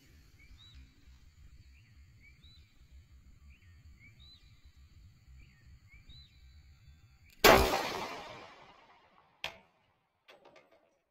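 A single pistol shot from a Taurus PT 640 Pro in .40 S&W, about seven seconds in, with a long echoing tail that fades over about a second and a half. About two seconds later comes a short sharp crack, and faint repeated chirping sounds in the background before the shot.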